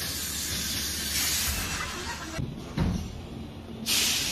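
Steady hissing from an automatic laser welding machine at work on impellers. It cuts out a little past two seconds in, a low thump comes near three seconds, and the hiss starts again, louder, about four seconds in.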